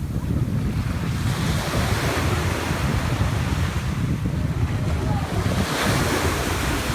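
Ocean surf washing onto the beach, its hiss swelling about a second and a half in and again near the end, with wind rumbling on the microphone throughout.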